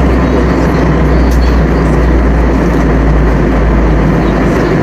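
Steady roar of an Airbus A321's engines heard inside the passenger cabin, with a deep, constant low hum beneath it.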